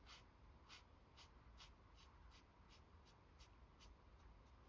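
Very faint scratching of an Ohuhu pastel marker's nib on paper: a quick, even run of short colouring strokes, about two to three a second.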